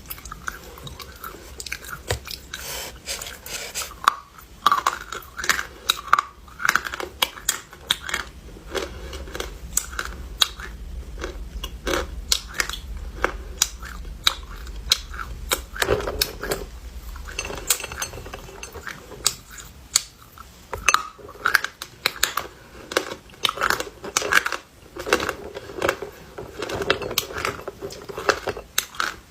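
Dry edible clay being bitten and chewed close to the microphone: a continuous, irregular run of sharp crunches and crackles.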